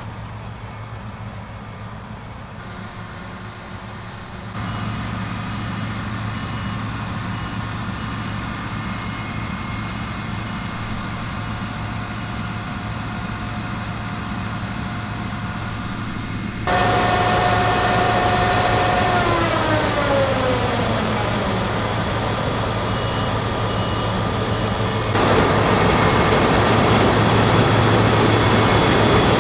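Claas Lexion 6800 Terra Trac combine harvester, its 340 kW Mercedes six-cylinder engine and threshing drives running steadily while cutting wheat, a low hum with whines above it. It gets louder in steps, and about two-thirds of the way through its whine falls in pitch.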